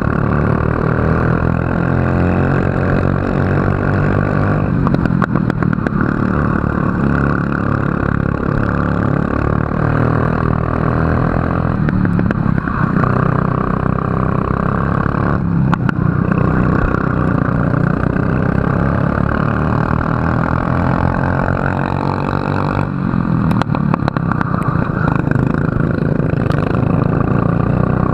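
Racing kart engine running hard, its pitch rising and falling as the kart accelerates and lifts off through the corners.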